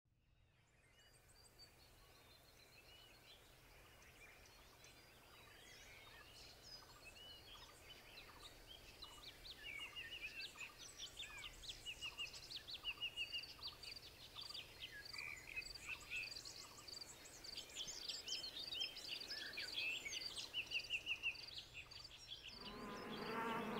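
A chorus of birds chirping and trilling, fading in slowly from nothing and growing louder. Near the end a buzzing sets in beneath the birdsong.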